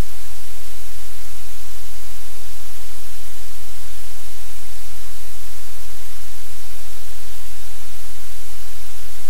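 Loud, steady static hiss with a deep hum beneath it, the noise of the camera's audio feed; nothing else stands out.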